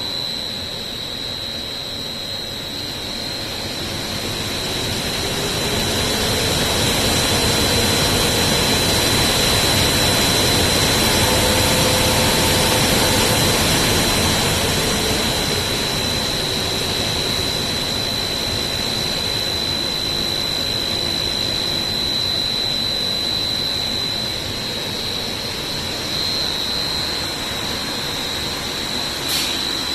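15 kW centrifugal dyno cooling fan running: a steady rush of air with a high whine held throughout. It grows louder over the first dozen seconds, then eases somewhat.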